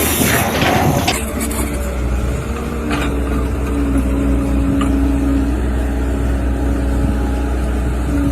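An engine running steadily with a low drone, after a loud rushing noise in the first second.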